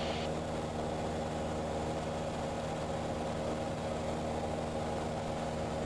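Cessna 172's piston engine and propeller droning steadily in cruise, heard from inside the cabin.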